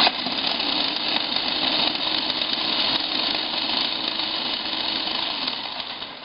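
A 220-watt food processor's motor running with its blade chopping an onion, powered through an inverter from a pedal-driven car alternator. It starts abruptly and runs steadily, dying away near the end.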